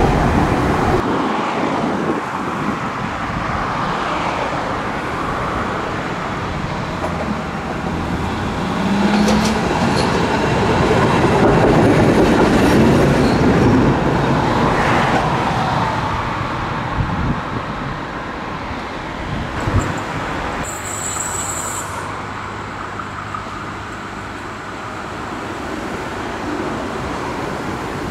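Trams running on street track: a steady rolling and traction noise that swells to its loudest about twelve seconds in as a tram passes. A brief high wheel squeal comes a little after twenty seconds.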